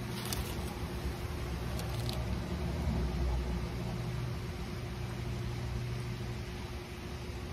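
Steady low outdoor background rumble, like distant road traffic, with a faint constant hum and a few faint clicks in the first couple of seconds.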